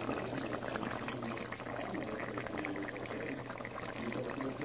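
Thick brown stew gravy bubbling in a pot with chicken pieces, a steady run of small pops and crackles over a low hum.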